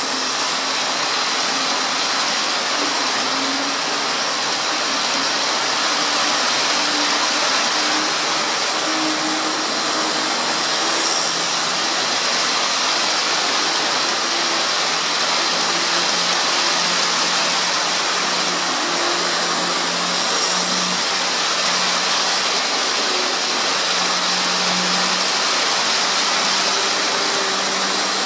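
Hornby OO gauge Class 91 model locomotive running at steady speed: the buzz of its electric motor and its wheels running on the rails as it pulls a heavy load of nine Mark 4 coaches and a DVT.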